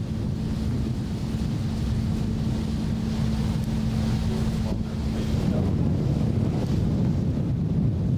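Wind buffeting the microphone aboard a moving boat, over the wash of water and a steady low engine hum that stops about five and a half seconds in.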